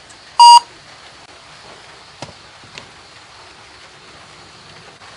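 A single short, loud electronic beep about half a second in, followed by two faint clicks.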